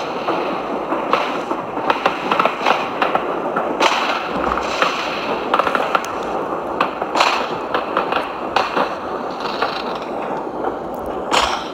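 Aerial fireworks display: shells bursting in a string of sharp bangs and crackles about once a second, over a steady din of background noise.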